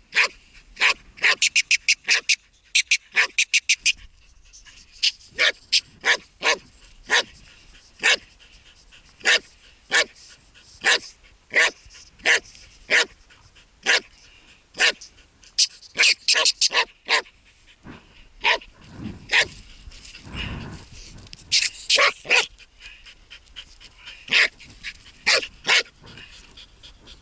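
Laika hunting dog barking at a hole where a marten has gone to ground. Short, high-pitched barks come singly about once a second, with quick runs of several barks in a row near the start, about two thirds of the way in and about 22 seconds in.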